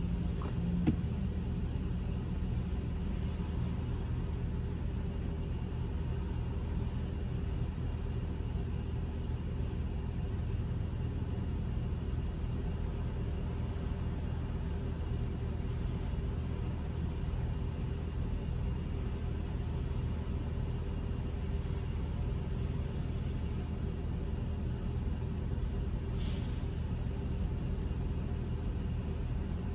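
Car idling, heard from inside the cabin: a steady low hum with a constant higher tone over it. A brief faint hiss near the end.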